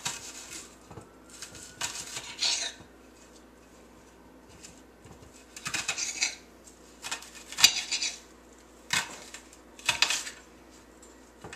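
Chef's knife dicing an onion on a glass cutting board: sharp, irregular clacks of the blade striking the glass in short clusters, with a pause of a couple of seconds in the middle.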